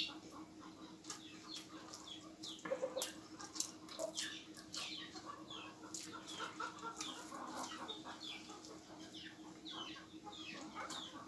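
Eating sounds of a man eating rice and goat meat curry by hand: soft chewing and mouth clicks, over a run of short, high, falling bird chirps several times a second, with a faint steady hum beneath.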